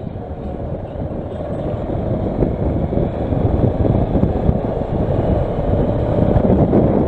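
Kawasaki Versys motorcycle accelerating, its engine and wind noise growing steadily louder as it picks up speed.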